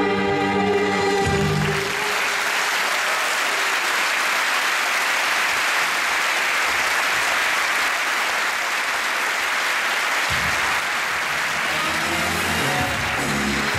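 Music ends about a second and a half in and an audience applauds steadily; music comes in again under the applause after about ten seconds.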